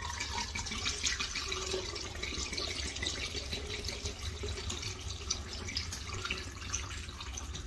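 Liquor pouring from a glass bottle through a funnel into a flask: a steady pour.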